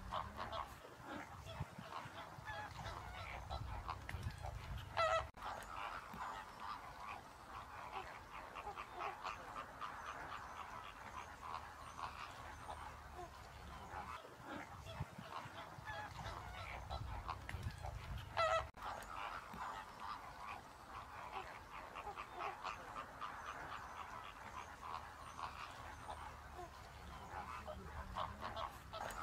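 A flock of greater flamingos calling: a dense, continuous chatter of goose-like honks. Two single louder honks stand out, one about five seconds in and one past the middle.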